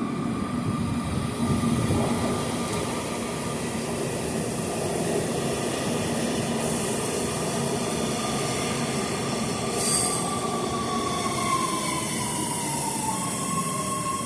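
Subway train running through the tunnel: a steady rumble with a high wheel and motor whine. The whine slides lower about eleven seconds in, then jumps back up near the end.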